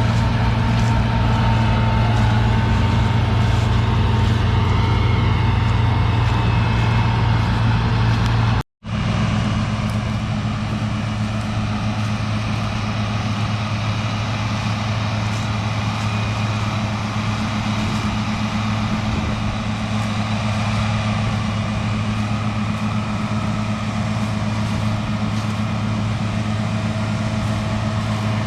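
Combine harvester's diesel engine running steadily with a deep, even hum; the sound cuts out for an instant about nine seconds in and resumes much the same.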